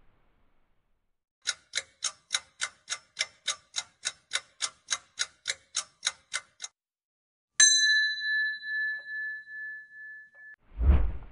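Countdown timer sound effect: a clock-like ticking, about three and a half ticks a second for about five seconds. Then a single bell ding rings out for about three seconds, and a short noisy swoosh comes near the end.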